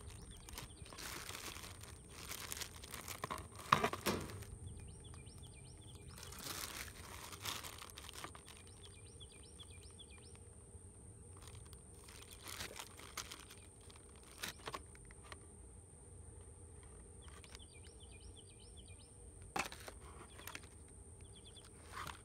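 Clear plastic zip bags of LED strip lights and wiring crinkling and rustling in the hands, with a few sharp clicks. Small birds chirp faintly now and then in the background.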